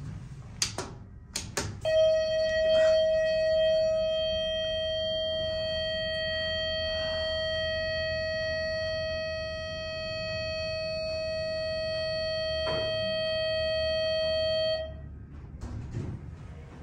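ThyssenKrupp hydraulic elevator's door nudging buzzer sounding one long, steady tone for about thirteen seconds, starting about two seconds in after a few sharp clicks and cutting off near the end. It signals nudge mode: the doors have been held open too long and are being forced slowly closed.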